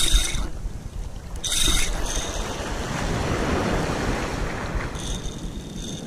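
Spinning reel cranked in two short bursts, a high whir from a reel whose line-roller bearing the angler says is broken, then surf washing with wind on the microphone.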